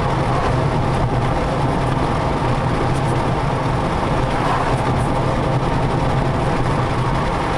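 Steady road and engine noise of a car driving along, heard from inside the cabin: an even low hum with tyre noise.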